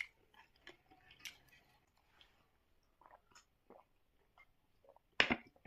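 Close-up chewing and mouth smacks of a person eating spicy Korean buldak noodles, in scattered short smacks. There is a louder burst of mouth noise just after five seconds.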